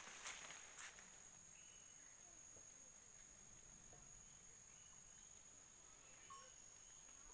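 Faint, steady high-pitched insect trill holding one unbroken note, with a few rustling footsteps through undergrowth in the first second.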